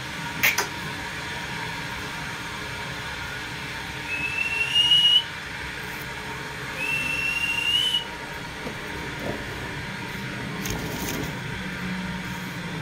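A sharp click about half a second in, then two long clear whistles, each lasting about a second and rising slightly in pitch, a few seconds apart.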